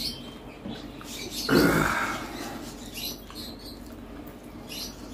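Close-up eating sounds: chewing and small wet clicks of lips and mouth, with one louder sound lasting about half a second about a second and a half in.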